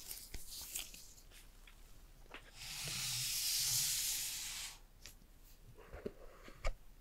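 Handling noises from gloved hands with a phone and its cardboard box: light rubbing and clicks at first, then a smooth rustling hiss for about two seconds in the middle, and a sharp tap near the end.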